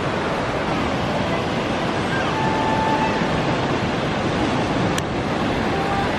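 Indian Ocean surf breaking and washing over a shallow reef shelf: a steady rush of wave noise, with one brief click about five seconds in.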